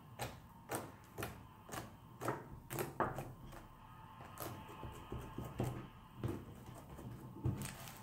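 Hands patting and slapping a large sheet of homemade slime on a wooden countertop: a string of short wet slaps, about two a second at first, then fewer and further apart.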